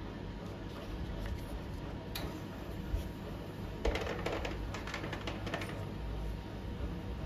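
Small clinks and clatter of tableware: a sharp click about two seconds in, a knock a moment later, then about two seconds of quick clinking near the middle, over a steady low hum.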